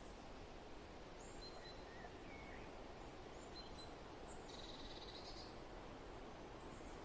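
Soft, steady wind noise outdoors, with a few faint scattered bird chirps and a short buzzy call about halfway through.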